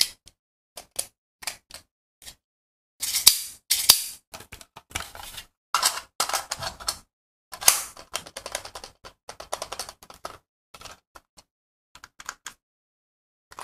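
Hard plastic clicks, snaps and short rattles of a Cybergun Smith & Wesson M&P9c spring BB pistol and its magazine being handled, the magazine pushed into the grip. The clicks come irregularly, with louder clusters a few seconds in and again about halfway.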